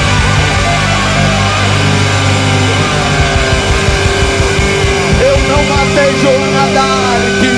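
Live rock band playing an instrumental passage: loud electric guitars over bass and drums, with a long held note coming in about halfway through.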